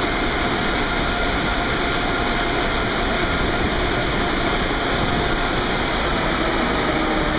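Car wash tunnel's air dryers blowing steadily: a constant loud rushing noise with a faint steady whine.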